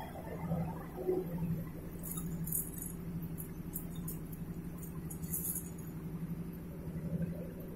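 Stainless-steel welding electrodes clinking and jingling against each other and the tin canister as fingers stir through the bundle, in scattered clinks from about two to five seconds in. A steady low hum runs underneath.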